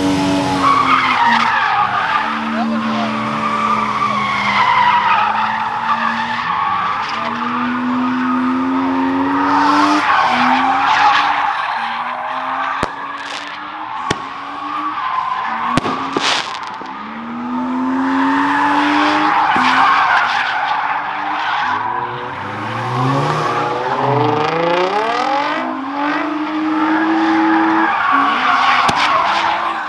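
A car doing donuts. Its engine revs up and down over and over, and its tires screech almost without a break, easing off only briefly twice.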